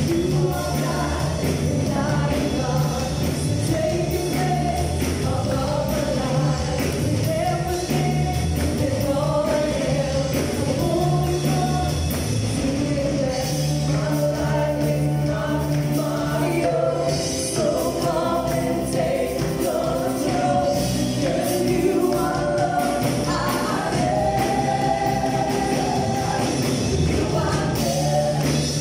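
Live worship band playing an upbeat gospel song: several singers sing together in harmony over amplified keyboard, guitar, bass and drums.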